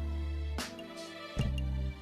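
Background music: a track with sustained bass notes and a steady beat.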